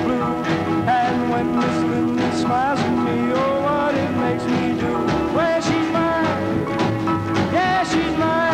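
Rock and roll music in an instrumental passage: a lead line slides up into its notes over a full band.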